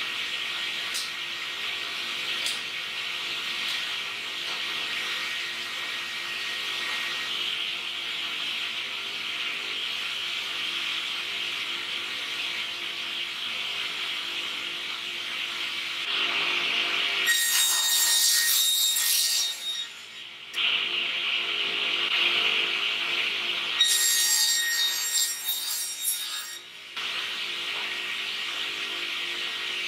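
Sliding-table panel saw running steadily with dust extraction, making two louder cuts through plywood sheet in the second half, each about three seconds long.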